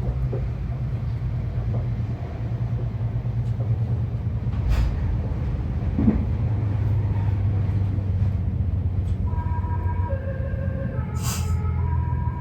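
Meitetsu 1200 series electric train running past with a steady low rumble and a few sharp clacks. About nine seconds in, its musical horn starts playing its melody in stepped notes; this car is known for an off-sounding horn.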